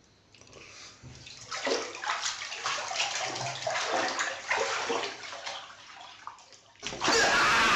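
Water rushing into a bathtub, starting suddenly and loud about seven seconds in. Before that come several seconds of uneven, noisy swishes.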